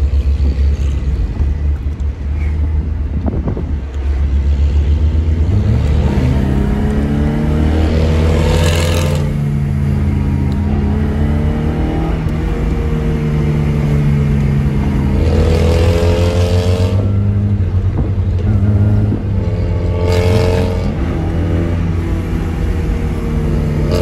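Tofaş Doğan SLX's four-cylinder engine through an aftermarket Varex exhaust, heard from inside the cabin while driving hard through the gears. Its note climbs under acceleration and drops back at each gear change several times, with two brief rushes of noise about nine and twenty seconds in.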